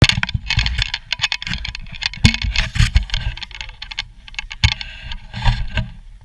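Wind buffeting a small camera's microphone on open ice: an uneven, gusting low rumble broken by frequent sharp crackles and knocks.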